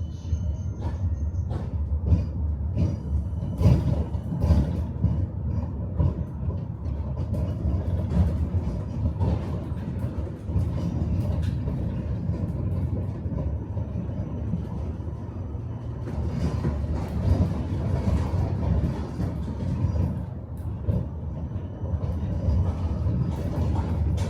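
Tram running along its rails, heard from inside the car: a steady low rumble of the wheels with frequent clicks and rattles, and a thin high whine that fades out in the first second or two.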